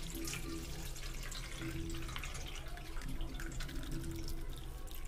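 Soaking water pouring and splashing through a plastic strainer into a steel bowl as soaked urad and moong dal are drained, with trickles and drips throughout.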